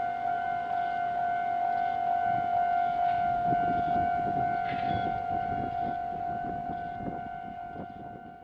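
A loud steady high-pitched tone that holds one pitch throughout, over the low, uneven rumble and knocking of the Iyotetsu 5000-series low-floor tram's wheels rolling slowly across depot points. The rumble grows about two seconds in and fades near the end.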